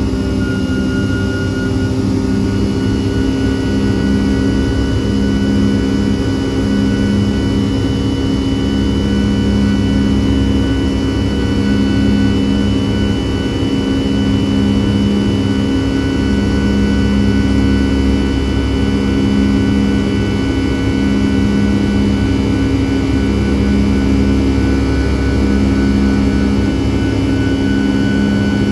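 Rolls-Royce RB211-535E4B turbofan of a Boeing 757-200 at climb thrust after takeoff, heard inside the cabin: a loud, steady drone with a low hum that pulses every second or two and several steady higher whining tones above it.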